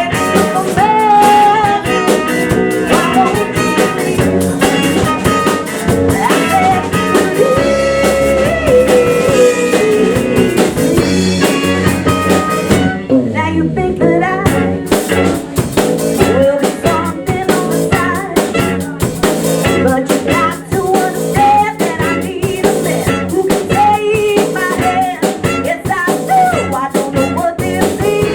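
Band playing blues-rock with a singer, guitar and drum kit. The drums drop out for about a second halfway through, then the full band comes back in.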